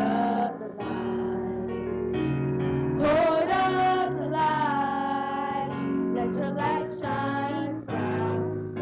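Children's choir singing a gospel song with keyboard accompaniment.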